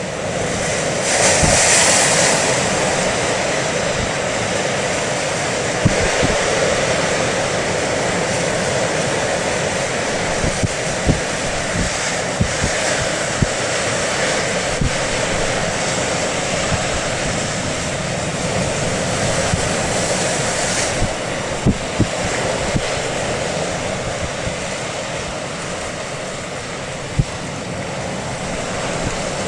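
A small fishing boat's engine running steadily as the boat comes in, over a wash of sea and wind noise, with a few short thumps of wind on the microphone.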